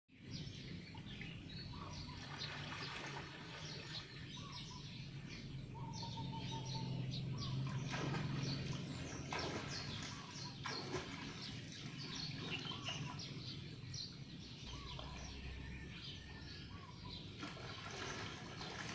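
Small birds chirping repeatedly over light water splashing from a swimmer's freestyle strokes, with a low steady hum underneath.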